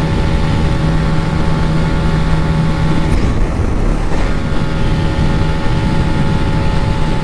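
Old carburettor Hero Splendor Plus's single-cylinder four-stroke engine running steadily at high speed, around 100 km/h, with wind and road noise over it.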